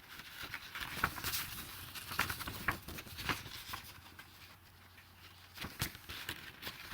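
Sheets of paper rustling as pages stuck together are pulled apart: a string of small scratchy crackles and clicks, quieter in the middle.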